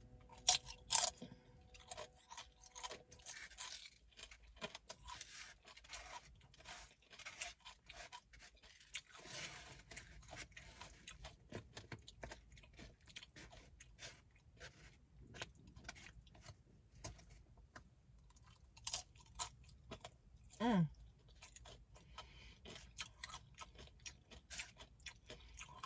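Close-miked chewing of tacos, with many small crisp crunches and wet mouth clicks coming irregularly throughout. A brief hum of the voice, falling in pitch, about three quarters of the way through.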